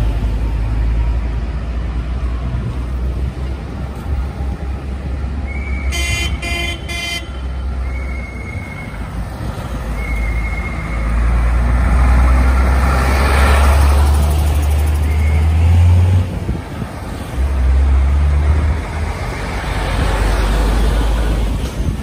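Heavy diesel engines of a Unimog, trucks and tractors driving slowly past close by, the rumble swelling as each one passes. A vehicle horn sounds three short toots in quick succession about six seconds in, and a few brief high beeps come in between.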